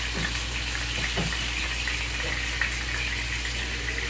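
Peeled shrimp sizzling in a frying pan on low heat, a steady crackling hiss as more shrimp are laid into the pan. A steady low hum runs underneath.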